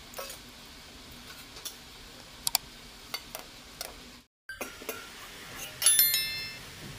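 A metal spoon clicks and clinks against a steel plate several times. After a brief dropout a little past halfway, a louder clink of steel rings briefly near the end.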